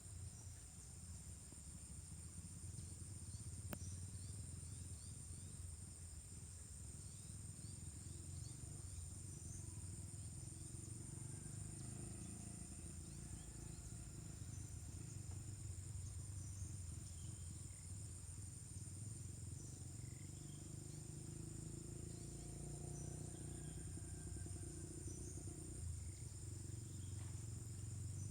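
Steady high-pitched drone of an insect chorus, crickets or similar, with scattered faint short chirps and a low rumble beneath.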